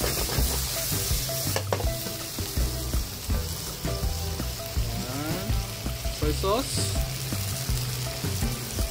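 Shrimp and mushrooms sizzling and bubbling in butter and dashi in a hot pan, a steady frying hiss, with one sharp knock about two seconds in.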